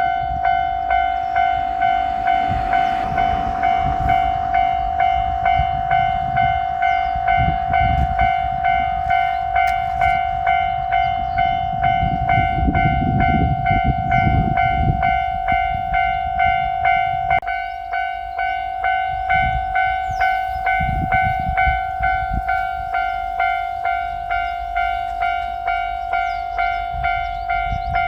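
Japanese railroad crossing bell ringing steadily at about two strikes a second, while a diesel railcar train rumbles past over the crossing; the train noise drops off a little past halfway and the bell keeps ringing.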